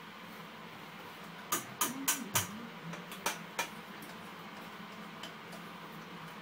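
Metal saucepan clanking against the stove and utensils as it is handled: four sharp clinks in quick succession, then two more about a second later.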